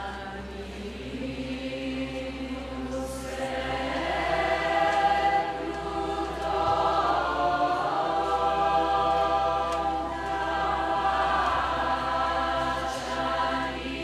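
Large choir singing a folk tune from Resia in long, held, chant-like notes, the sound swelling louder over the first five seconds.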